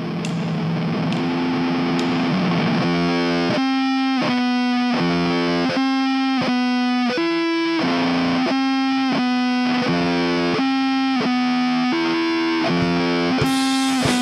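Sludge punk music: a heavily distorted electric guitar holds a droning chord, then from about three seconds in plays a chugging riff of chord stabs about twice a second. Drums come in near the end.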